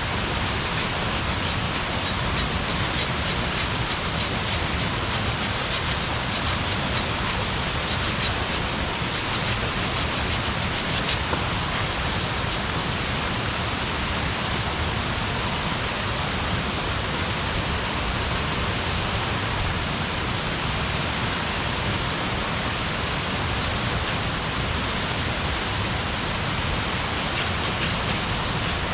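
Wood campfire burning: a steady rushing hiss with a few faint crackles scattered through it.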